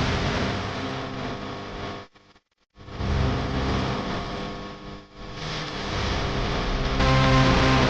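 Dense, rushing promo soundtrack sound design with a steady low drone, cutting out abruptly for about half a second a couple of seconds in, then swelling back.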